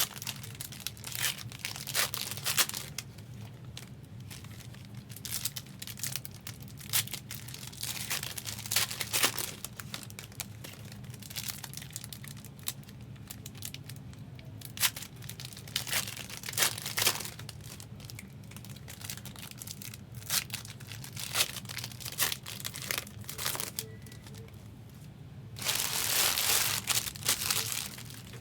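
Foil wrappers of 2024 Upper Deck Marvel Annual trading card packs being torn open and crinkled, with many short crackles and clicks of the packs and cards being handled. A longer stretch of tearing and crinkling comes near the end.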